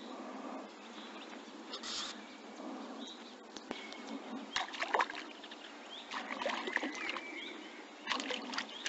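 A hooked perch splashing at the water's surface while it is reeled in on a spinning reel, in short bursts of splashes and clicks, the strongest about halfway through and more near the end.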